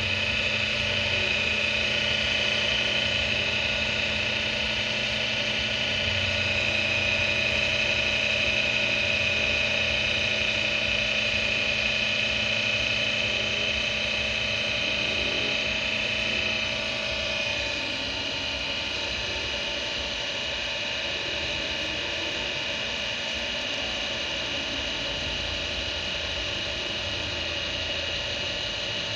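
An electric motor running steadily with a hum and a high whine, switched on with a click just before; it settles slightly quieter about 17 seconds in.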